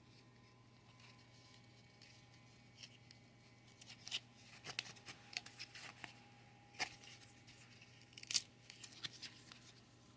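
Toy packaging being opened by hand: faint scattered crinkles, clicks and small tearing sounds, starting about three seconds in, over a steady low hum.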